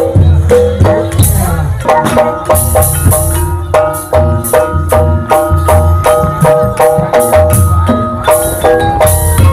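Gamelan playing the ebeg accompaniment: metal-keyed instruments strike a quick, even run of notes, about four a second, over deep drum beats, with a high metallic rattle on top. The melody grows more regular about two seconds in.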